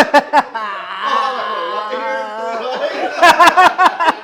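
People laughing after the punchline of a riddle: a few short laughs, a long drawn-out laugh, then a quick run of 'ha-ha-ha' bursts near the end.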